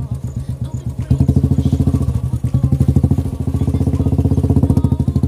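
Royal Enfield Classic 350's single-cylinder four-stroke engine running at low revs with an even, pulsing exhaust beat as the bike is ridden slowly through mud. It gets louder about a second in as the throttle opens.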